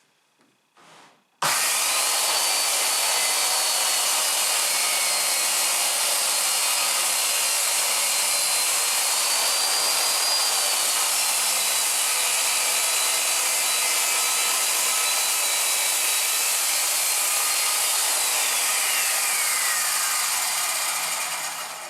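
Circular saw started about a second in and run through a long rip cut in a plywood sheet along a straightedge jig, with a steady high motor whine that wavers slightly under load. Near the end the trigger is released and the blade winds down, its whine falling until it stops.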